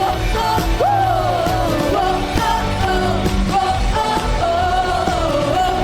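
Live church worship band playing a pop-rock praise song, with voices carrying a gliding melody over the band.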